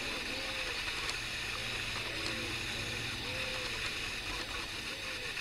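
Mallard hen giving soft, low quacking calls, short and repeated about once a second: the contact calls a hen uses to keep her ducklings close. A steady hiss runs underneath.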